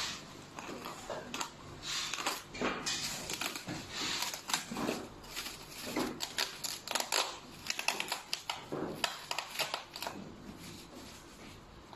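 Plastic packing film crinkling and rustling in quick, irregular crackles as hands handle a wrapped machine and its foam packing blocks.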